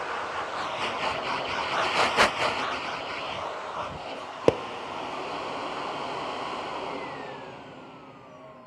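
Dyson vacuum cleaner sucking small bits of debris out of a shaggy rug, with a crackly crunch as the debris goes up the wand for the first few seconds and a sharp click about halfway. Near the end the motor is switched off and winds down with a falling whine.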